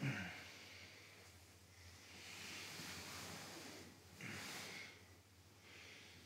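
A person breathing quietly and slowly: a short sharp exhale at the start, then about three long, soft breaths.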